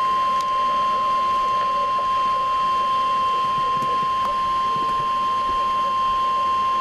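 Emergency Alert System attention signal: the single steady 1050 Hz NOAA Weather Radio warning alarm tone, sounding without a break to announce a severe thunderstorm warning.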